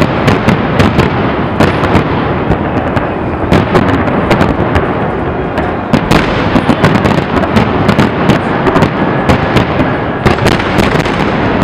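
Aerial fireworks display: shells bursting in quick succession, a dense, unbroken barrage of bangs with crackling stars.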